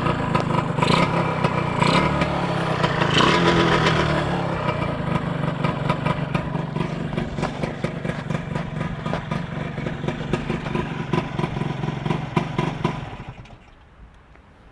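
Motorcycle engine running with a mechanical clatter, blipped a few times in the first four seconds, then running steadily, and cut off about 13 seconds in.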